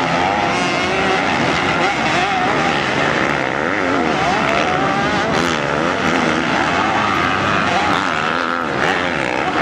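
Several MX2 motocross bikes racing at once, their engines overlapping and revving up and down as the riders accelerate over the track.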